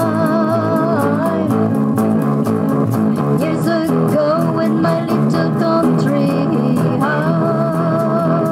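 Song: a woman singing over electric guitar and bass, holding long notes with vibrato at the start and again near the end.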